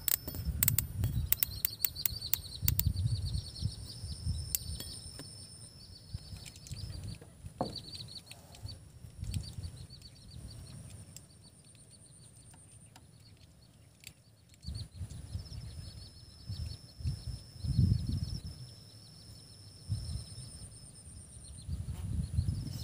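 Rice-field ambience: steady high buzzing and fast chirping trills, likely insects, with irregular low rumbling bumps on the microphone and a quick run of clicks in the first two seconds.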